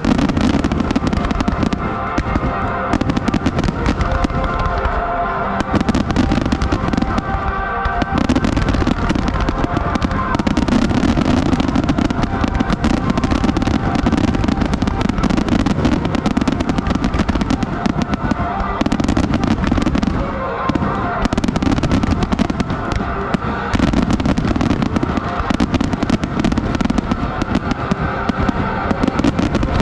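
Fireworks bursting and crackling in rapid, unbroken succession, with music playing alongside.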